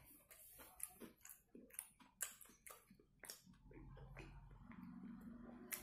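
Faint close-up chewing of a mouthful of cheesy chicken burger: irregular wet mouth clicks and smacks, a few a second. About three and a half seconds in, a low steady hum joins under the chewing.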